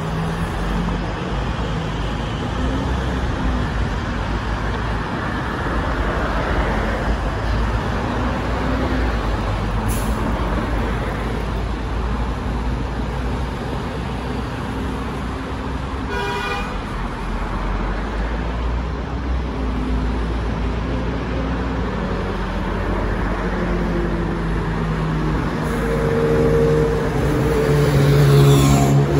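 Steady road traffic on a multi-lane city road, cars and buses passing with tyre noise and engine hum. The sound swells near the end as a vehicle passes close.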